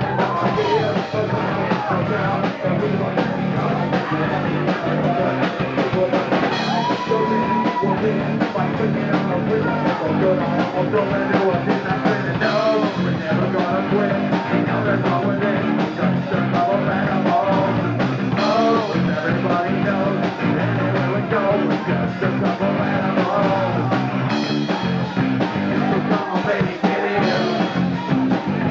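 Live rock band playing in full: a man singing into a microphone over electric guitar and a drum kit, with no break in the music.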